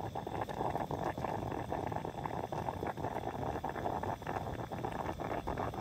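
Stainless steel stovetop coffee percolator perking on a camp stove: a steady bubbling gurgle with many small, irregular pops.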